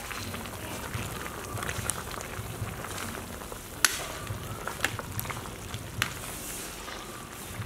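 Large cast-iron pot of vegetable soup boiling hard over a wood fire, stirred with a metal ladle: steady bubbling and hiss with a few sharp clicks, the loudest about four seconds in.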